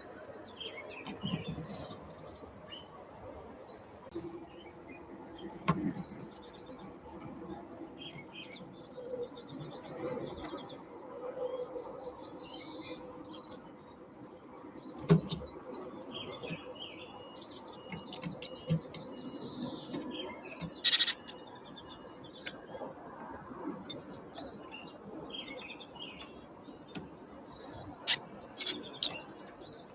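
Wild songbirds calling, with many short high chirps and calls throughout. Several sharp knocks or taps cut in, the loudest about two-thirds of the way through and twice near the end. A faint steady background hum lies under it all.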